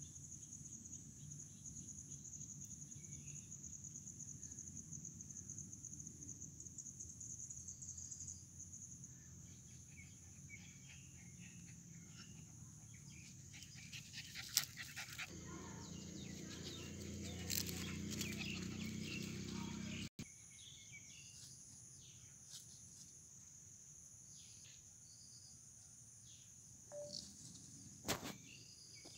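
Insects chirring in a steady high-pitched buzz that fades for a stretch in the middle and then comes back. A low rumble swells in the middle, and a few sharp clicks come about halfway through and near the end.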